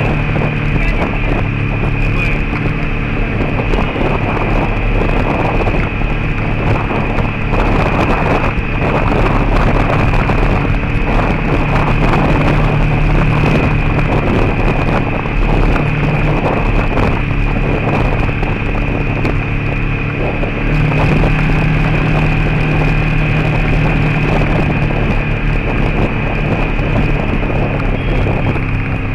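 A vehicle's engine running steadily while driving on a gravel road, with loud tyre and road noise from the gravel and wind buffeting the microphone.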